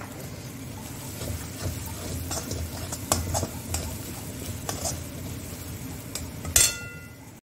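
Metal spatula stirring and scraping a thick onion-spice masala frying in a metal kadhai, with a low sizzle and scattered scrapes against the pan; the masala is nearly done frying. About six and a half seconds in, a single loud metal clink rings briefly.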